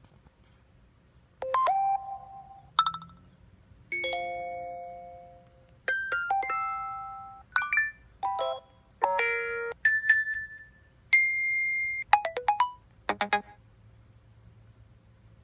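An iPhone's speaker playing a run of different short alert tones one after another: about a dozen chimes, beeps and jingles roughly a second apart, each with its own pitch and pattern.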